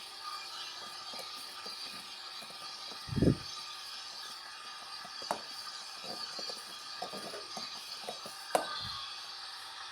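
LG washing machine running its heavy-load wash cycle: a steady motor hum with a dull thump about three seconds in and a few sharp clicks and knocks from the turning drum and load.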